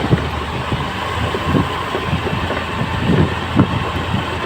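Steady low drone of a vehicle engine on the move, with an even rush of road and wind noise.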